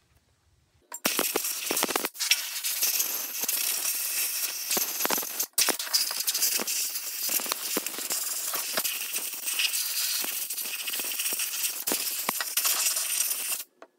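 Compressed-air blow gun with a long nozzle blasting rinse water off a cast-iron drill press head casting: a loud steady hiss full of small crackles, starting about a second in, with brief pauses near two and five and a half seconds, and stopping just before the end.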